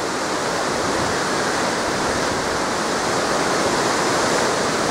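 Whitewater of a mountain stream rushing steadily over rocks, a loud even hiss with no letup.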